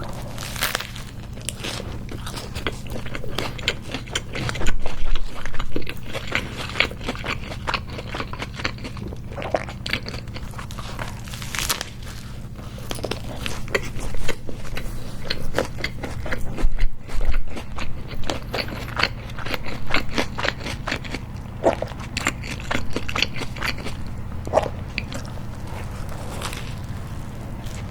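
Close-miked biting and chewing of a homemade hamburger with a toasted, crisp bun: irregular crunchy bites and crackly, wet chewing that keep on throughout.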